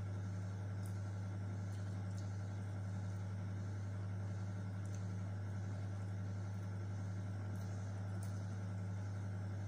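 A steady low hum, with a few faint, soft clicks from someone eating chicken with their hands.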